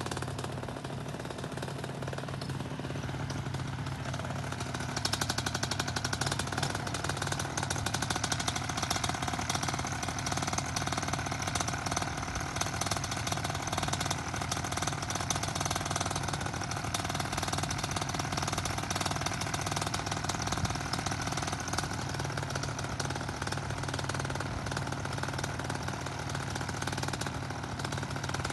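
Paramotor engine running steadily at idle on the ground before launch, with a rapid, even chatter. It runs a little harder and louder from about five seconds in until about twenty seconds in, then settles back.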